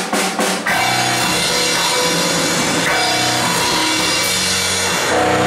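Heavy metal band playing, heard through the camera's microphone: a quick run of drum hits at the start, then, under a second in, the band comes in with guitars and a full drum kit, the chords changing every couple of seconds.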